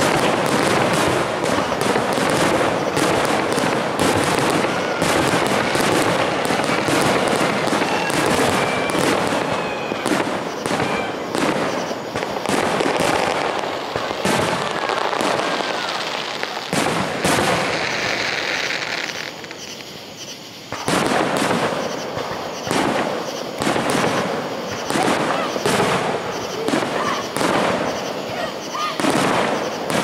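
Aerial fireworks going off in a dense, nearly continuous barrage of shell bursts and crackling, easing off briefly about two-thirds of the way through before picking up again.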